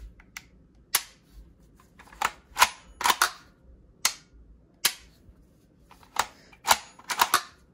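A Kriss Vector SDP Enhanced 9mm pistol being function-checked after reassembly: its charging handle and trigger are worked, giving about a dozen sharp metallic clicks and clacks at irregular intervals. The gun is unloaded, so the hammer falls and the action cycles without firing.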